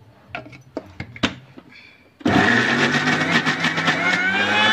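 A few light clicks and knocks, then about two seconds in an electric mixer-grinder starts suddenly and runs loud, its whine rising as the motor speeds up. It is wet-grinding spice and coconut masala with added water into a paste in its stainless steel jar.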